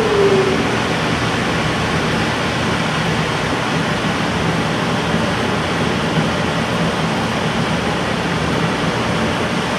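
Steady rushing air noise from running shop equipment, with a low electrical hum under it.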